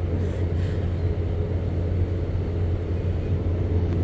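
Steady low drone of a docked cruise ship's machinery running, an even rumble that holds unchanged.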